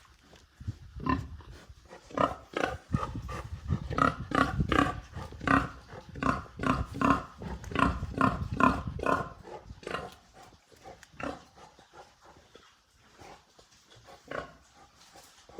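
Farm animals calling: a quick run of short, pitched calls, several a second, that thins out to occasional calls after about nine seconds.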